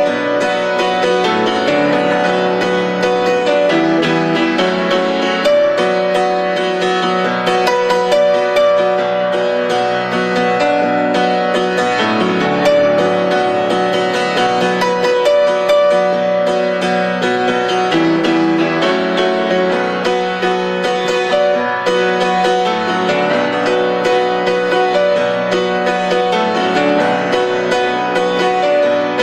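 Instrumental background music with a keyboard melody of held notes.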